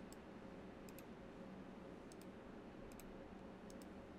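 Faint computer mouse clicks, about five, most of them in quick pairs, over a low steady room hum.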